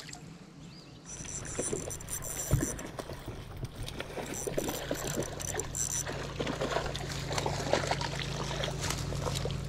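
A hooked fish thrashing and splashing at the pond's surface on the end of a spinning rod's line, starting about a second in. A high whine comes and goes twice over the splashing.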